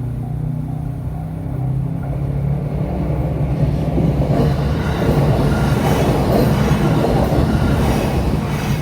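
A JR Sagami Line train passing over the level crossing. Wheel and rail noise builds from about two seconds in and is loudest in the second half, over the crossing's repeating warning bell.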